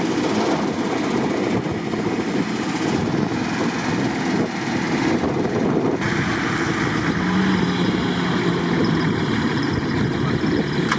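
Off-road 4x4 engine sound in deep peat-bog mud. After about six seconds it changes to a Toyota Land Cruiser 80 driving through the mud ruts under load, wheels flinging mud, its engine note holding steady.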